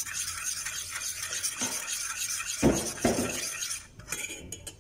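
A metal spoon stirring and scraping a thick coffee and cacao mixture around a stainless steel pot, with two louder clanks of spoon on pot about three seconds in. The stirring dies down to a few light clicks near the end.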